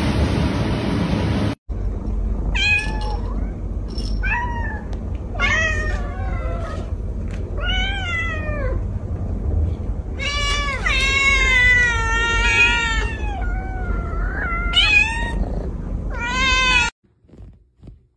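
Several cats meowing, a series of rising-and-falling calls with several overlapping in the middle. It opens with a brief steady low rumble that cuts off, and the meowing stops suddenly near the end.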